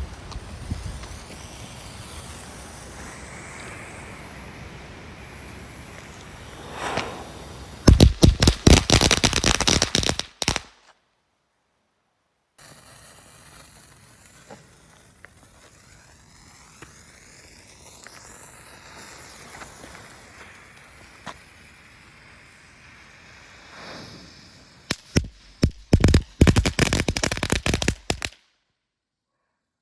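A 30-shot DB Fireworks Pyroplay 'Bangaz' category 1 battery firing: two rapid strings of sharp bangs, each lasting about two and a half seconds. Each string comes after a brief hiss, about eight seconds in and again near the end.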